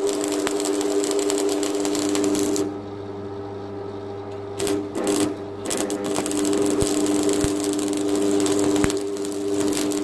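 Stick (arc) welding with a transformer welding machine: the electrode's arc crackles and sizzles over the machine's steady hum. The arc breaks off a little under three seconds in. It sputters in a few short spurts around five seconds as it is struck again, and burns steadily again from about six seconds.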